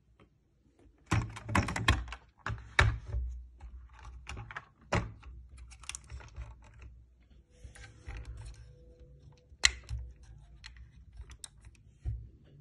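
Plastic toy Lamborghini Urus being handled: a dense run of clicks and knocks in the first few seconds as it is turned over and set down on a concrete floor, then scattered clicks and one sharp knock later on.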